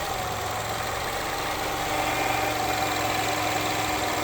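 2017 Nissan X-Trail idling with the transmission in low gear, giving a steady hum: the abnormal transmission noise the owner hears at 5,000 to 10,000 km.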